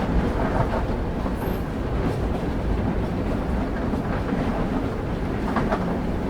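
Railway carriage wheels rolling on the rails: a steady low rumble with a few faint, irregular clacks.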